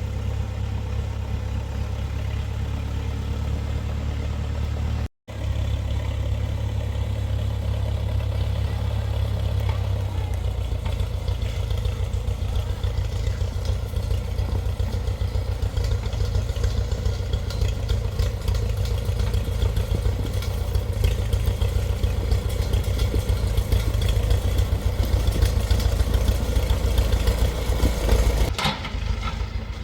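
Engine of an old Case 580CK backhoe running steadily with some clatter as the machine is driven. There is a brief break in the sound about five seconds in, and from about ten seconds the engine note turns more rapid and choppy.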